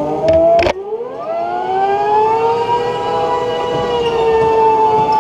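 Indoor go-kart's drive motor whining as it accelerates: the pitch rises for about a second, then holds nearly steady. Two sharp knocks come just before the rise.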